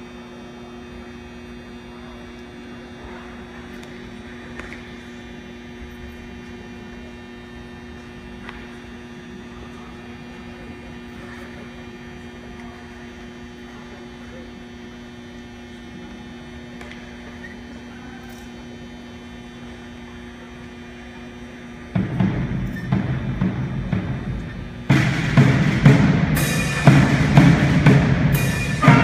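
A steady electrical hum with nothing else for most of the time, then a cadet marching band strikes up about 22 s in: drums first, then the whole band with brass comes in loud about three seconds later.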